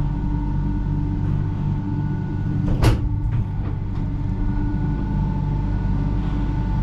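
Doppelmayr gondola cable car station machinery running: a steady mechanical hum with several held tones as the cabins roll through the station, with one sharp clank about three seconds in.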